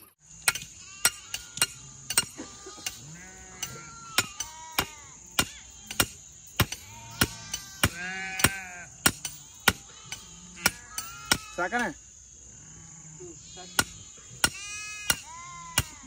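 Hammer knocking on the top of a wooden stake, driving it into the ground, in sharp strokes about two a second with a short pause near the end. Sheep bleat throughout.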